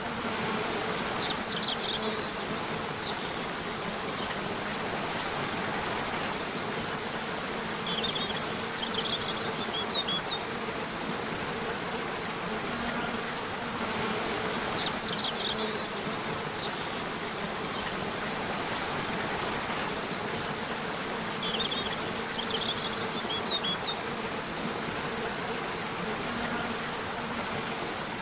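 Insects buzzing steadily over a constant soft hiss, with a low hum that swells and fades. Clusters of short, high chirps recur every six or seven seconds.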